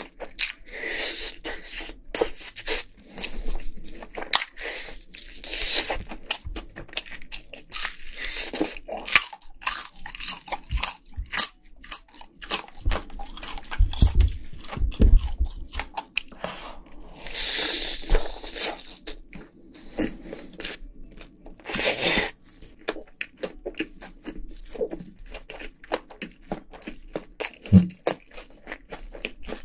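Crunching and chewing of crispy Korean fried chicken, with dense quick crackles as the fried skin breaks between the teeth and a few louder bursts of crunching.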